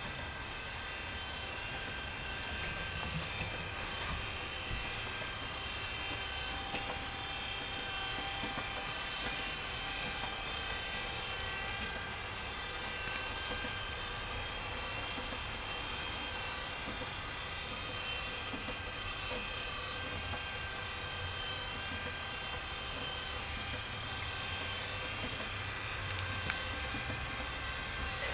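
Small electric motors whirring steadily: a low hum with several high, steady whines over a hiss, unchanging throughout.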